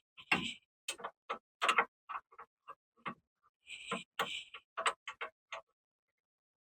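Ratchet wrench clicking in short runs, mixed with irregular sharp metal clicks and knocks of tools on the suspension parts.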